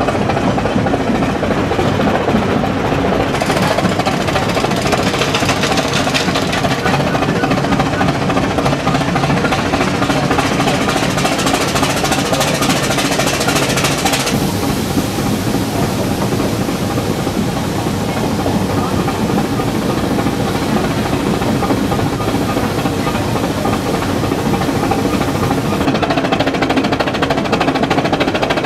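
Small steam rack locomotive pushing its coaches uphill, heard from the coach just ahead of it: a steady, loud, rhythmic running noise with a continuous mechanical whine. A high hiss lies over it and cuts off suddenly about halfway through.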